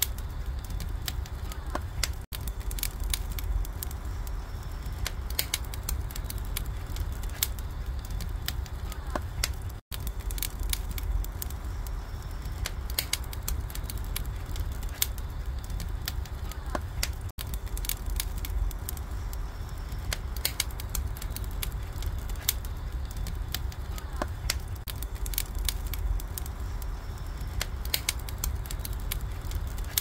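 Wood fire crackling and popping irregularly over a low steady rumble, the logs burning beneath oysters grilling in the shell.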